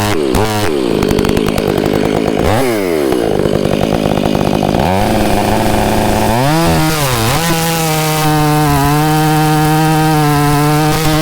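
Stihl 500i chainsaw revved in quick throttle blips for the first few seconds, then held at high speed. It dips briefly, then runs steady and slightly louder from about eight seconds in as it cuts the face cut into the trunk.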